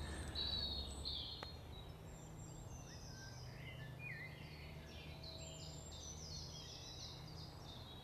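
Woodland birdsong: several birds singing at once, in overlapping chirps, trills and gliding notes over a faint steady low hum.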